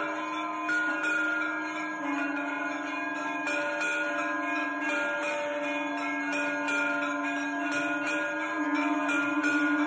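Temple bells ringing continuously during aarti, including a priest's brass hand bell: repeated quick clanging strikes over overlapping sustained ringing tones, with a steady low drone underneath that shifts slightly in pitch.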